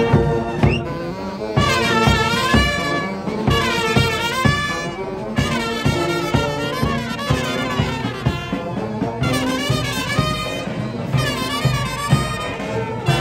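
Marching brass band playing a tune as it walks, with euphoniums, trumpets and tubas carrying the melody over a steady bass-drum beat.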